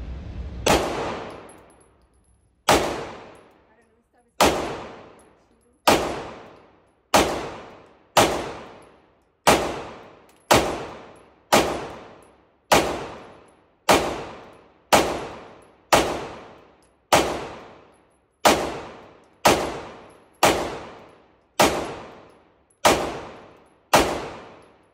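A pistol fired slow and steady, about twenty shots at roughly one a second, each sharp report ringing out in the echo of an indoor range.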